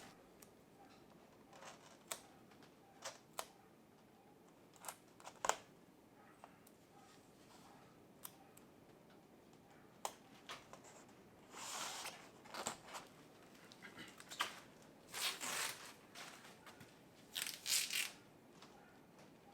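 Adhesive tape being pulled off the roll and torn in short rasping strips, three times in the second half, among scattered light clicks and taps.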